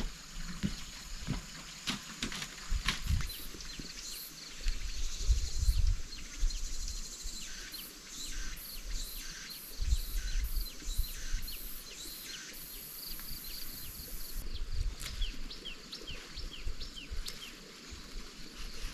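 Small birds chirping in quick series of short, high calls, over a low, uneven rumble.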